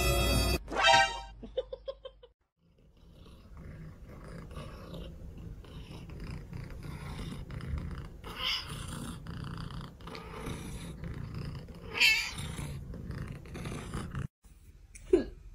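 A cat purring steadily and closely, a low pulsing purr, with two brief louder sounds partway through.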